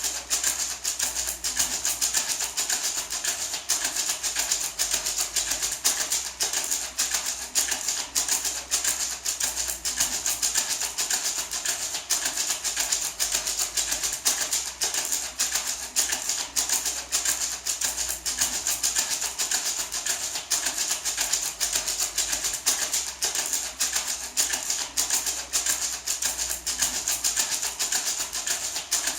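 Small gourd maraca shaken in a steady quick rhythm, the seeds inside rattling in dense, even pulses.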